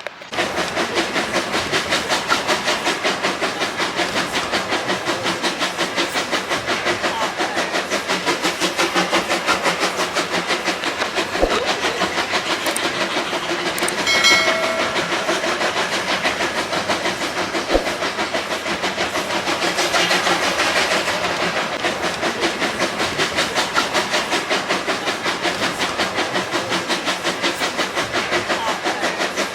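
Steam train on the move, a fast even rhythmic beat going on throughout, with a short whistle about fourteen seconds in.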